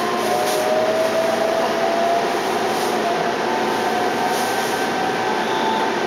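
Keihan 13000-series electric train running, heard inside the passenger car: a steady rumble of wheels and motors, with a faint whine from the traction drive that slowly rises in pitch.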